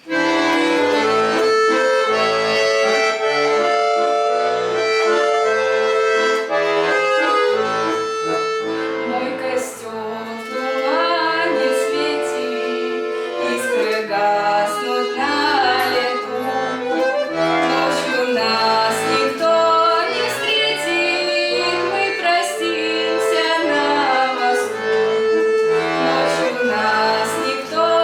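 Accordion playing an instrumental introduction: held chords over a regular pulse of bass notes, with a melody moving above them.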